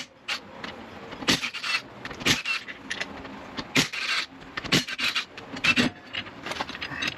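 Irregular clicks and knocks of hand tools and car parts being handled, about one or two sharp knocks a second.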